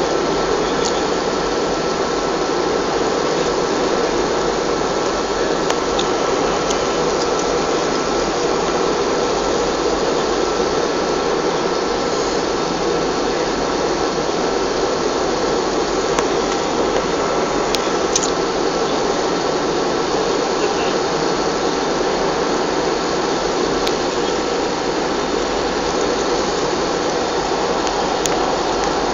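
Steady cabin noise of an Airbus A320 on approach: the even rush of the jet engines and airflow heard from inside the cabin, with a faint steady high tone running through it and a few soft ticks.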